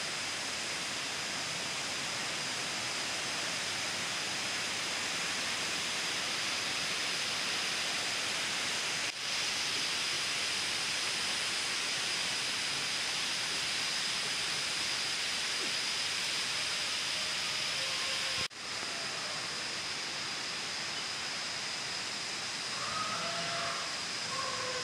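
Steady, high-pitched forest hiss of an insect chorus, with one thin held tone high above it. It drops out briefly twice. Faint short bird calls come in over the last few seconds.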